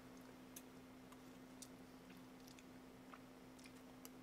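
Near silence: room tone with a steady low hum and a few faint, scattered clicks.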